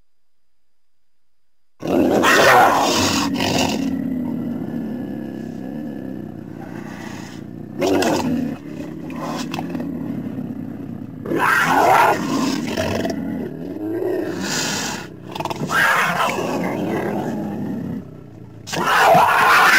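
Mountain lion (cougar) vocalising. There is a series of about six loud, rough calls, each a second or more long, starting about two seconds in.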